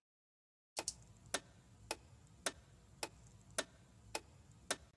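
Layered foley click sample, a guitar-pick click stacked with a clock tick, with the second click of each pair pitched up or down so that together they make a clock-like ticking. Eight sharp ticks at about two a second, starting about a second in.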